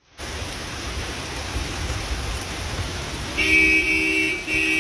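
Steady rain noise, then a car horn sounds two long honks near the end, the second running on.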